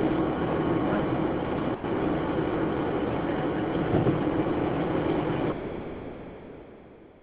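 Long rolling rumble of thunder, heard from inside a moving car. It holds steady for several seconds, then dies away over the last two seconds.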